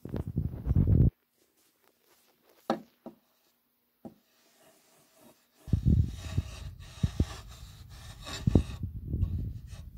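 Rubbing and handling noise close to the microphone, with a few light knocks of a cast-iron melting ladle against a wooden box lid in the quiet middle stretch.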